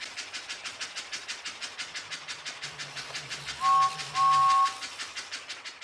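Battery-powered plastic toy train running along plastic track, its wheels and motor making a rapid, steady clicking of about ten clicks a second. Around the middle, a two-note electronic toy whistle sounds twice, briefly.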